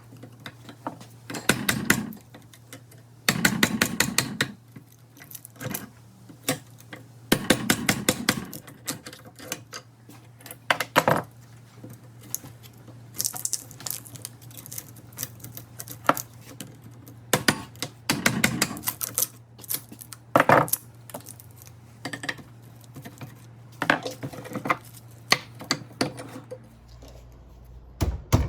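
Metal clinking and tapping in irregular bursts, some in quick runs, as a microwave oven transformer is broken apart by hand for its copper windings.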